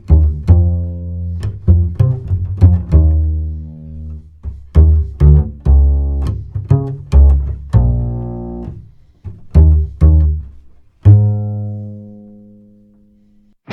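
Upright bass played pizzicato, a run of plucked notes with a last note left ringing and fading out near the end. It is heard as a recorded sample through a Buzz Audio Velox DC optical compressor with transformer output.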